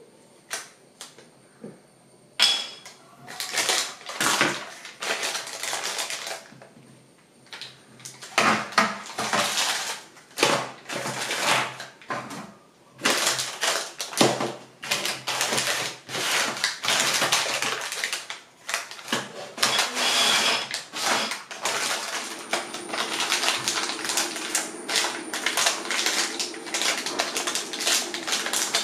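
Plastic packaging crinkling and rustling in irregular bursts as small bagged switch modules are handled and a packet is opened, starting about two seconds in with a short lull around seven seconds.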